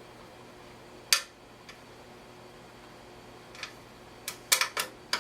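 Small metal clicks and taps of a screwdriver and a tiny hard-drive screw against the metal drive and drive bay while the screw is being started. There is one sharp click about a second in, then a quick cluster of clicks near the end.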